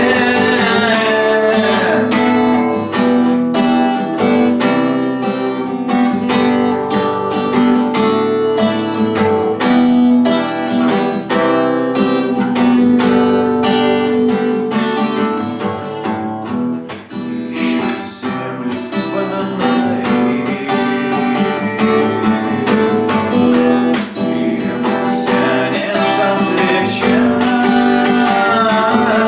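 Acoustic guitar strummed steadily, playing a chord accompaniment at an even rhythm.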